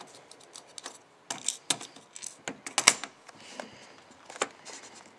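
Irregular light clicks and taps of small metal padlock parts and pins being handled, the loudest about three seconds in.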